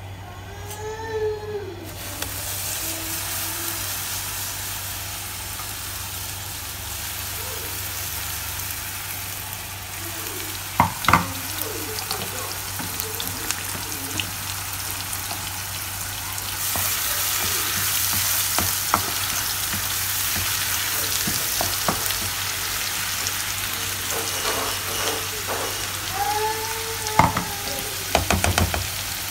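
Blended paste of shallots, garlic and dried shrimp frying in hot oil in a nonstick pan: a steady sizzle that starts about two seconds in and grows louder about halfway through. A spatula stirring it gives a few sharp knocks, a cluster of them near the end.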